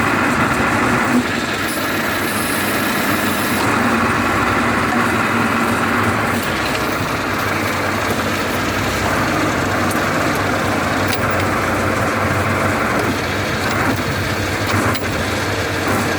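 Tractor engine running steadily under load, driving a Berardinucci Tornado soil-working implement through the ground.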